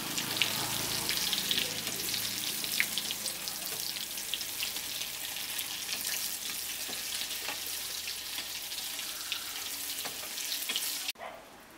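Egg-coated soybean chunks deep-frying in hot refined oil in a kadai: a steady crackling sizzle as they brown. It cuts off suddenly just before the end.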